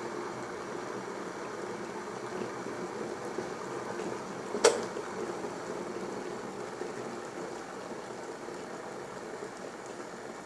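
Blaupunkt EKG501BK glass electric kettle with water boiling, a steady bubbling rush. About halfway through comes a single sharp click, typical of the kettle switching itself off at the boil, and the bubbling eases slightly after it.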